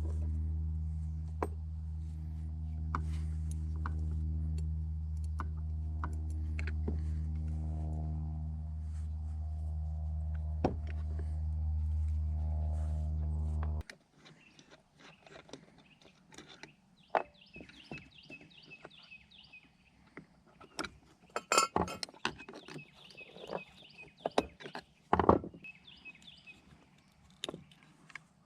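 Small metal carburetor parts clinking, clicking and knocking against each other and the bench as the carburetor is taken apart, with a few louder knocks in the second half. A steady low hum runs under the first half and cuts off suddenly about halfway through.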